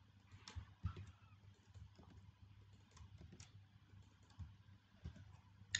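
Faint, scattered clicks of computer keyboard keys being typed, with a sharper click near the end.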